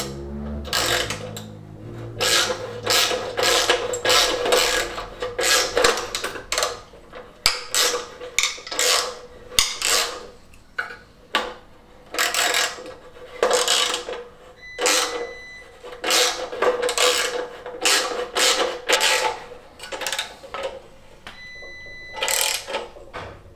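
Hand socket ratchet clicking in repeated short strokes as bolts are turned on the engine's pulley and dynamo mounting, in runs with short pauses.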